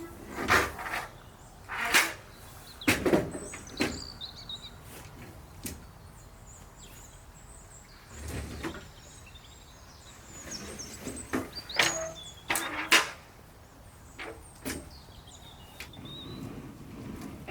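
Concrete mixer being unloaded: a series of short, loud metal scrapes and knocks as the heavy machine is shifted, with a quieter stretch in the middle. Birds chirp faintly behind it.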